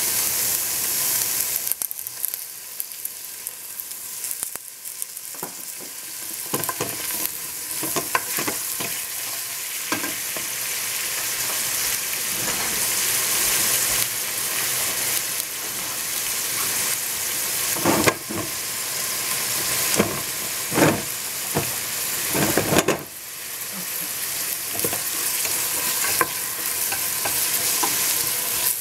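Chopped onion, red capsicum and potato frying with a steady sizzle in a stainless steel pot. A wooden spoon stirs them and knocks against the pot several times, mostly in the second half.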